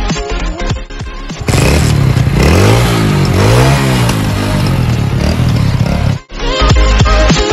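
Electronic background music, broken about a second and a half in by a motorcycle engine revving up and down several times. The music comes back near the end.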